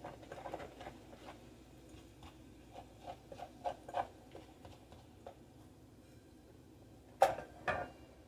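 Plastic spatula scraping and tapping against the inner pot of a small electric rice cooker while garlic is stirred in it: a run of light, irregular scrapes and taps, then two sharper knocks about half a second apart near the end.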